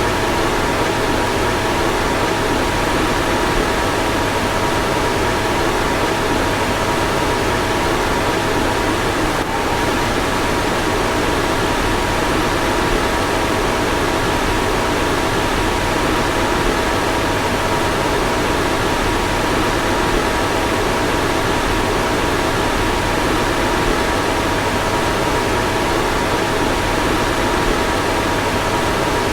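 Car fan running steadily: a constant whoosh of moving air with a faint steady whirring hum of a few tones above it.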